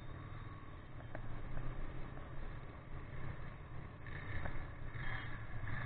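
Ducati 959 Panigale's Superquadro V-twin engine running under way, mixed with wind and road noise, as picked up by a camera mounted on the bike.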